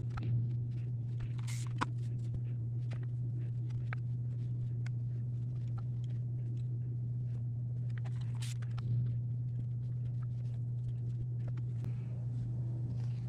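Cotton fabric pieces being handled and pressed with a hand iron: light rustles and small taps, with louder rustles about a second and a half in and again near eight and a half seconds, over a steady low hum.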